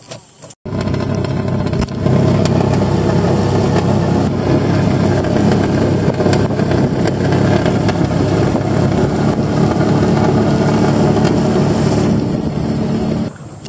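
Outboard motor of a wooden dugout canoe running at speed, a loud steady drone with water rushing past the hull. It starts abruptly under a second in and grows louder about two seconds in.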